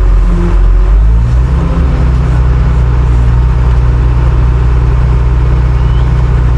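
Diesel engine of a farm loader running loud and steady under work; its speed changes about a second in, then holds.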